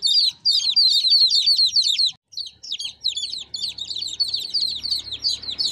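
Several domestic chicken chicks peeping in a basket: rapid, overlapping high-pitched falling peeps, several a second, with a brief break about two seconds in.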